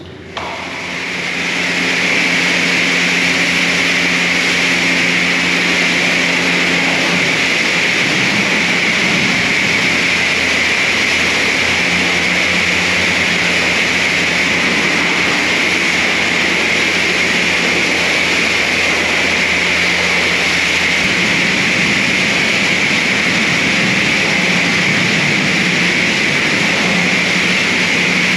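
High-pressure car-wash wand spraying water onto a car body to rinse off soap foam: a loud, steady hiss that builds over the first couple of seconds, with a steady low hum underneath.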